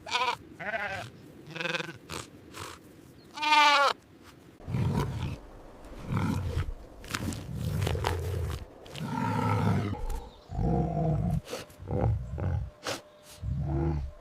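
A dog's high, drawn-out whining howls, followed by a long series of low, deep animal grunts, roughly one a second.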